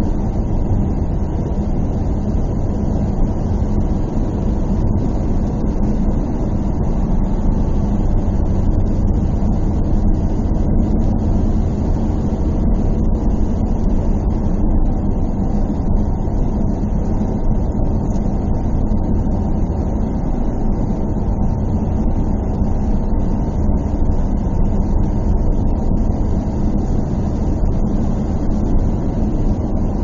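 Car driving, heard from inside the cabin: a steady low rumble of road and engine noise, even in level, with no gear changes or revving.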